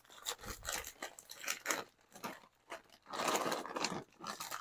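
Plastic bag of frozen fire-roasted corn crinkling and crackling as it is handled and opened, with a denser stretch of rustling about three seconds in as the corn is tipped into the pot.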